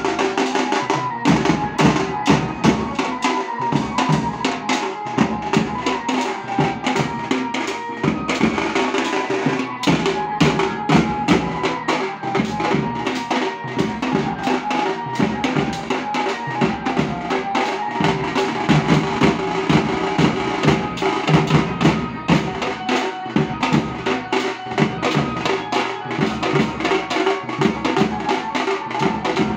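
A banjo party street band playing loud, fast, dense drumming with cymbal strokes, and a melody line held over it.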